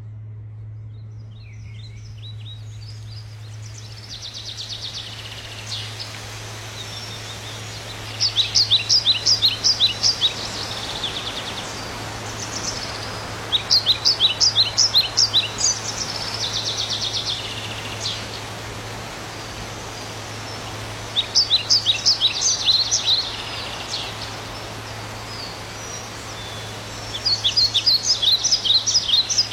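A songbird singing in repeated phrases: quick runs of high chirping notes lasting about two seconds, coming back about every six seconds, over a steady low hum and faint outdoor background noise.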